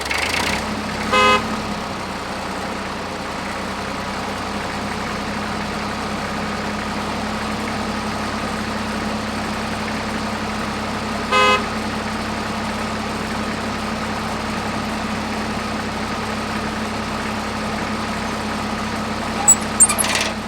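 A small electric motor hums steadily, with two short horn toots, one about a second in and another about eleven seconds in.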